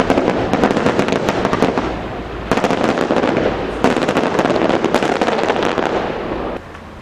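Aerial fireworks shells bursting into crackling stars, a dense rapid crackle throughout, with fresh bursts about two and a half and four seconds in, dying down near the end.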